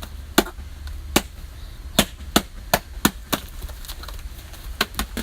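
Slime being squeezed and worked by hand, giving a series of sharp, loud pops at an uneven pace.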